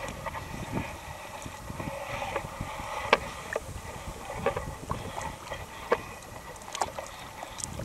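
Water sloshing and splashing, broken by scattered sharp splashes or knocks at irregular moments. The loudest comes about three seconds in.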